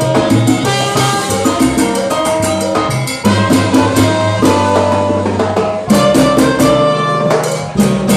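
Live salsa band playing, with keyboard and hand percussion (congas and timbales) driving a steady, busy rhythm.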